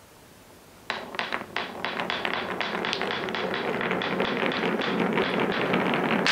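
Balls clattering down a wooden marble-run track, starting suddenly about a second in. Rapid clicks as they strike the wood, over a rolling rumble that builds steadily louder.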